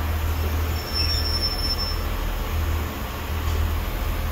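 Pacer diesel railbus running with a steady low rumble, with a brief thin high squeal about a second in.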